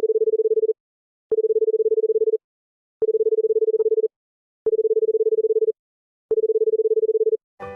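Electronic telephone tone beeping five times, each beep a steady fluttering note about a second long with half-second gaps between, like a phone-call ringing tone. A chiming music jingle starts right at the end.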